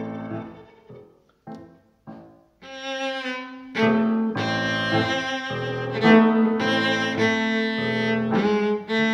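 Instrumental background music with long held notes. It thins to a few single notes about a second in, then returns fuller and louder about four seconds in.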